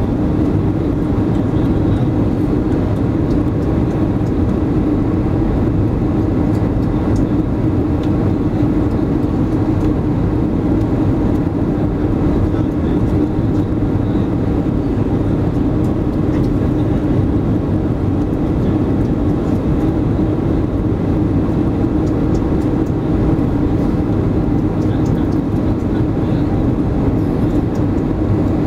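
Airbus A320 cabin noise heard from a window seat over the wing during the landing approach: a loud, steady rumble of the engines and rushing air with a constant hum, unchanging throughout.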